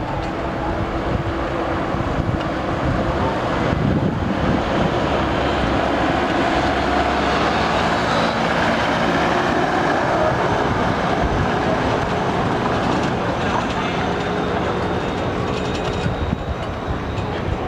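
Small tourist road train, a tractor styled as a steam locomotive on rubber tyres and towing open carriages, driving past: a steady engine hum over tyre noise on the paving, a little louder as it passes close about halfway through.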